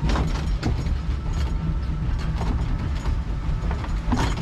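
Log flume boat riding up the lift conveyor: a steady low rumble with irregular clicking and clattering from the lift mechanism, and one louder clack near the end.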